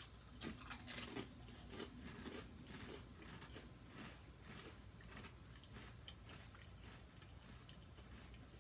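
Wavy potato chips (Lay's Wavy Funyuns Onion flavor) being bitten and chewed: a few sharp crunches in the first second, then quieter crunchy chewing.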